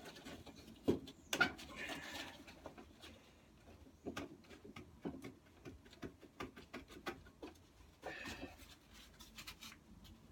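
Scattered light clicks and small knocks of hand work on mower parts, with brief rustling about two seconds in and again about eight seconds in.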